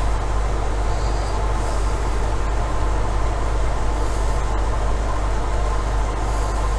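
Steady low hum with an even rushing noise that does not change.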